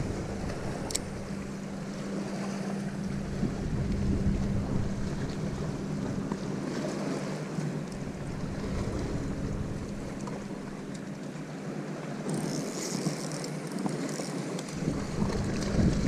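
Wind buffeting a boat-mounted action-camera microphone with a rumble that comes and goes, over water lapping against a bass boat hull and a steady low hum.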